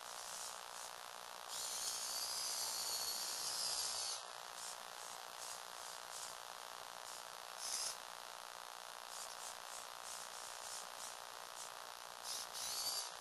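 Small electric motors and plastic gears of a remote-controlled Lego Technic model buzzing as it drives, over a steady hiss. A louder, wavering high whine starts about a second and a half in and drops back after a couple of seconds.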